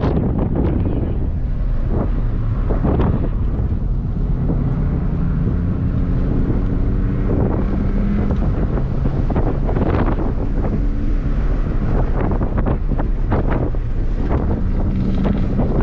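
In-cabin sound of a Chevy Sonic's 1.4-litre turbocharged four-cylinder pulling under throttle, its engine note climbing in pitch through the middle, under a steady low rumble of road and wind noise buffeting the microphone.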